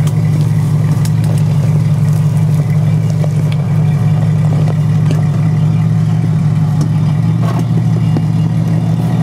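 Lifted Jeep's engine running steadily at an even pitch as it crawls slowly over rocks, with a few sharp knocks.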